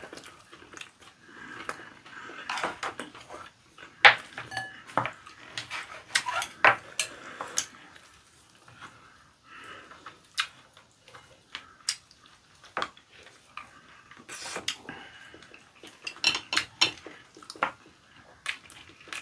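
Chopsticks and spoons clicking and scraping against ceramic bowls during a meal, many irregular sharp clinks, with soft chewing and mouth sounds between them.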